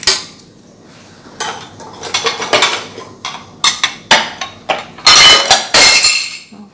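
A metal spoon clinking and scraping against cookware: a run of sharp strikes with a metallic ring, heaviest and loudest about five to six seconds in.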